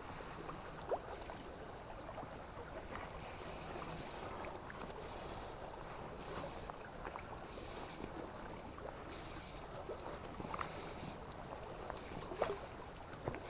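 River water running steadily, with a soft swishing sound that comes and goes about every second and a half and a few sharp knocks, the loudest about a second in and near the end.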